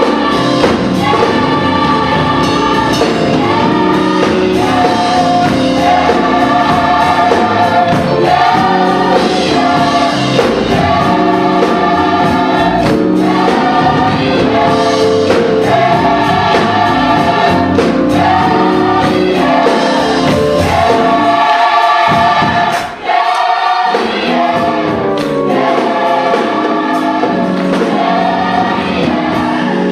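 Gospel choir singing in harmony with live band accompaniment. The bass end drops out briefly about three quarters of the way through.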